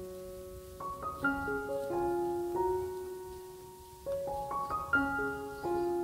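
Background piano music: a gentle melody of held, ringing notes played in two short phrases.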